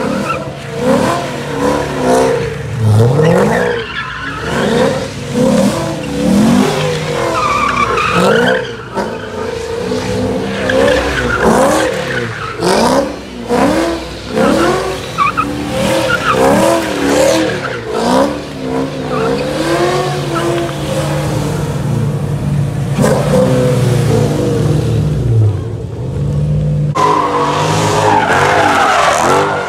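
Car tires squealing in long, wavering, repeated squeals as cars do donuts or burnouts, with an engine running hard underneath.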